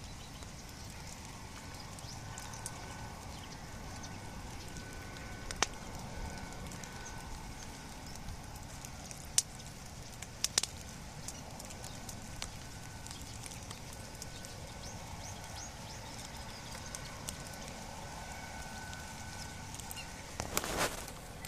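Bonfire crackling: a steady hiss with a few sharp, scattered pops and a quick run of pops near the end.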